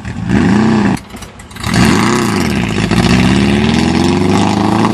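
VW Baja Bug's engine revving hard under acceleration: the revs swing up and down, drop away briefly about a second in, then climb again and are held high.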